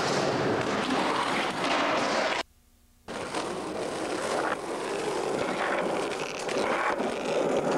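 Skateboard wheels rolling on concrete and asphalt, with a few sharp knocks of the board. About two and a half seconds in, the sound cuts out for about half a second, then the rolling resumes.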